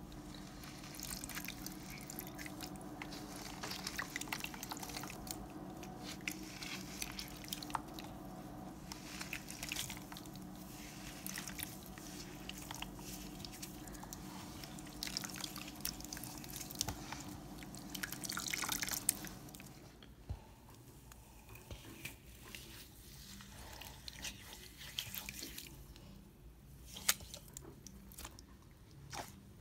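Wet floral foam coated in slime being squeezed and crushed by hand: quiet squishing with many small, rapid crackles and crunches as the foam breaks apart.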